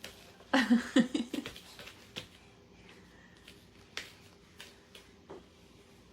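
A baby's brief vocal outburst about half a second in, then a few sharp, light clicks and knocks, typical of a baby handling a plastic push-walker toy.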